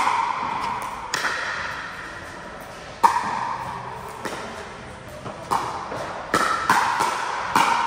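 Pickleball rally: hollow pops of paddles striking a plastic pickleball, about eight hits, coming quicker in the second half as the exchange speeds up at the net. Each pop rings briefly and echoes in a large hall.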